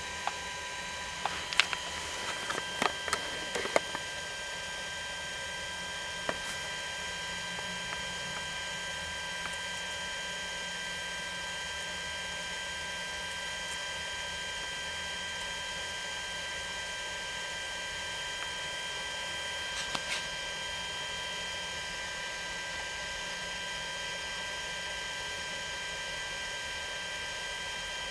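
Steady electrical hum with several thin, high, constant whining tones. A cluster of sharp clicks and taps comes in the first few seconds, and a couple more about two-thirds of the way through.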